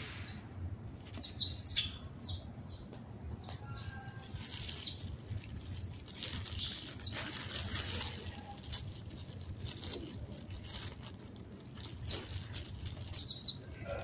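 House sparrows chirping in short, high notes scattered throughout, with a few quick flurries of wingbeats as they flutter about close by. A low steady hum runs underneath.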